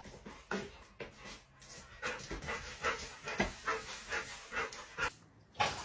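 A dog panting in quick, even breaths, about three a second.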